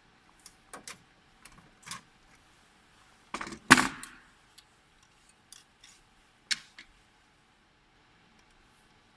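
Scattered clicks and knocks of hard parts being handled while a hard drive is taken out of a copier, with a louder clatter about three and a half seconds in and a sharp knock a few seconds later.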